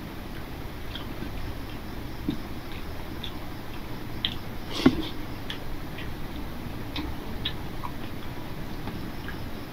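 Fingers mixing rice with curry on a plate by hand: scattered small wet clicks and squelches, with one sharper click just before five seconds in, over a steady low background hum.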